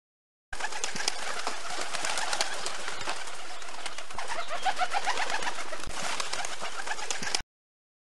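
Many birds chirping in a dense, busy chorus, with short clicks scattered through it; an added sound clip that starts and cuts off abruptly.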